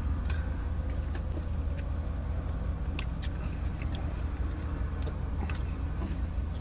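Steady low hum inside a car's cabin, with scattered light clicks and crinkles from handling and biting into a burger in its cardboard box.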